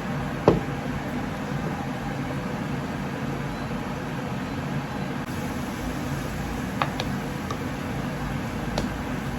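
Steady hum of a running kitchen appliance, with three short sharp clinks: one loud, about half a second in, and two fainter ones near the end.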